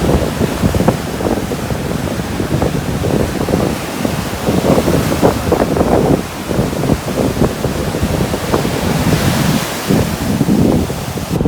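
Strong wind buffeting the microphone in loud, uneven gusts over the hiss of ocean surf, with a wave's wash swelling louder about nine seconds in.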